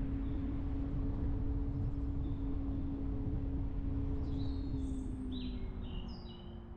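Car driving: low road rumble and a steady engine hum that drops slightly in pitch about five seconds in as the car eases off. A few short bird chirps come in over it near the end.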